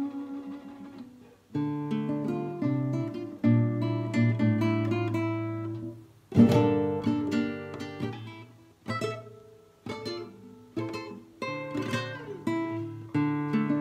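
Nylon-string classical guitar played solo: plucked notes and chords ringing out, with a brief pause a little over a second in and a loud chord struck about six seconds in.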